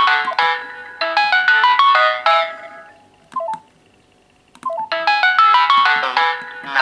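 Mobile phone ringtone: a short melody of quick electronic notes, played twice, with a pause of about two seconds in the middle broken by one brief blip, then the melody starting again.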